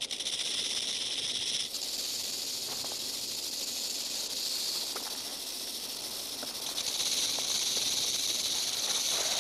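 Western diamondback rattlesnake rattling its tail: a continuous dry, high buzz that starts abruptly and shifts in tone twice. It is a defensive warning from an irritated, disturbed snake.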